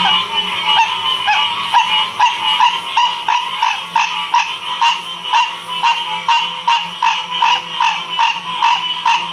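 Chorus of frogs calling together: a steady background trill with short croaking calls repeating evenly about two to three times a second.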